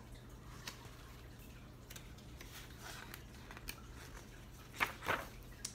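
Picture-book pages being handled and turned: scattered soft paper rustles and light taps, with two louder crisp rustles close together near the end.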